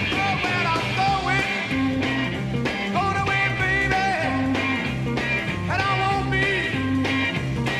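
Rock band playing live, an instrumental passage of a rhythm-and-blues number: a steady beat and a repeating bass line, with lead notes bending up and down in pitch over them.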